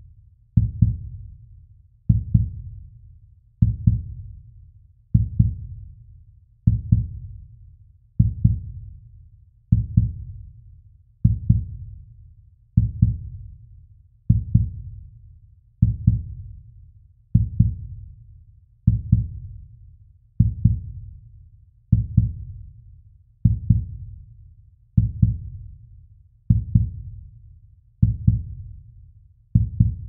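Slow heartbeat sound effect: a deep lub-dub, two close thumps repeating evenly about every one and a half seconds.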